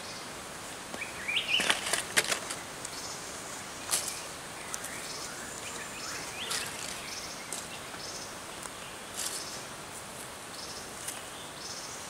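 Wings and feathers of a bunch of dead small birds rustling and flapping as they are handled and turned over, in several short sharp bursts, the loudest a little under two seconds in. A steady high hiss of forest ambience lies under it.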